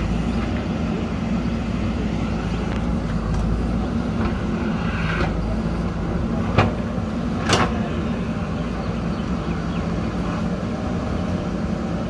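JCB backhoe loader's diesel engine running steadily as the machine backs up with its front loader bucket. Two sharp knocks about a second apart a little past the middle, the first the louder.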